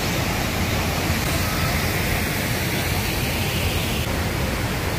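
Steady rushing of water pouring down a stone wall waterfall; the hiss shifts slightly about four seconds in.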